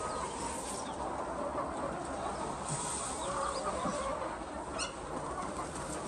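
A large flock of laying hens clucking and calling together in a continuous overlapping chatter.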